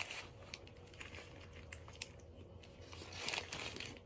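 Biting into and chewing a steak and cheese bagel sandwich that had gone tough and was hard to bite through, with its paper wrapper crinkling: scattered soft clicks and rustles.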